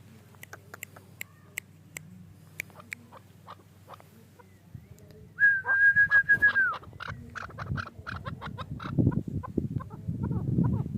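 Chukar partridge calling: about five seconds in, a loud held high note with a rapid pulsing, then a fast run of short repeated notes. Before the call, only scattered light clicks and taps.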